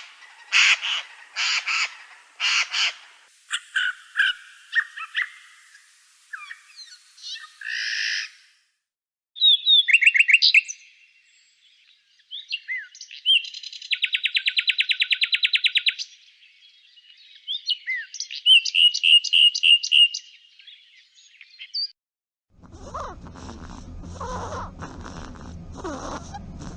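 A string of different bird calls and chirps, cut one after another with short gaps, including a fast, buzzing trill partway through. Near the end a different, rough animal sound with a low rumble begins.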